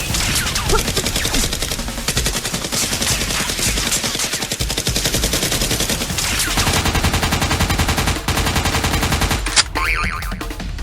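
Rapid automatic gunfire, volley after volley of fast shots, as dubbed over a Nerf blaster battle, with a brief break a couple of seconds before the end.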